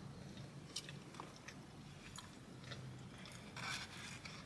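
A person quietly chewing a bite of Oreo-topped doughnut, with faint scattered mouth clicks and a brief soft noise about three and a half seconds in.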